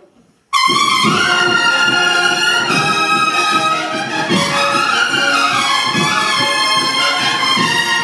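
Spanish cornet-and-drum band (cornetas y tambores) playing a processional march: after a moment of silence, the bugles and drums come in together loudly and suddenly about half a second in, then play on over a steady drum beat.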